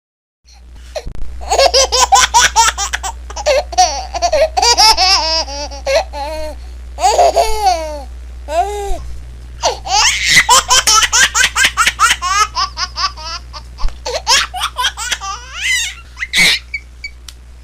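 Laughter sound effect: a baby or small child laughing, high-pitched, in quick repeated bursts that start about half a second in and run in waves.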